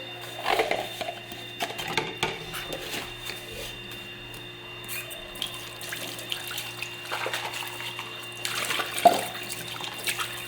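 Kitchen tap running into a sink during washing-up, with scattered clinks and knocks of dishes, the loudest about nine seconds in.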